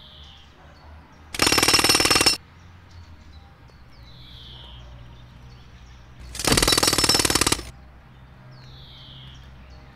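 Jackhammer hammering in two loud bursts, each about a second long and about five seconds apart, over a low steady hum. Between the bursts a bird gives a short falling chirp three times.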